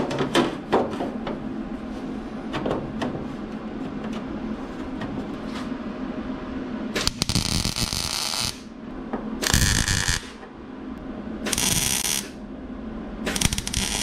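Hobart Handler 140 MIG welder tacking a steel patch plate onto a car's firewall with the stop-and-start method: four separate short bursts of arc sizzle, each about a second long, starting about seven seconds in. Before the welding, the plate clinks and taps as it is set in place.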